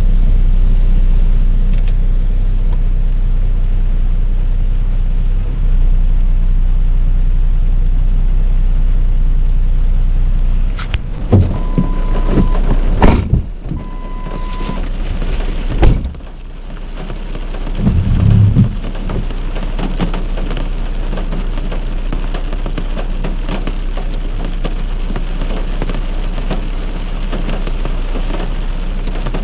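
Steady car road noise, then about halfway through two short electronic beeps among a few knocks. After that comes heavy rain pouring down, with a brief low rumble soon after.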